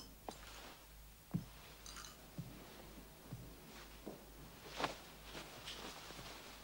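Quiet room tone with a handful of faint, scattered knocks and clicks, the clearest about a second and a half in and again near five seconds.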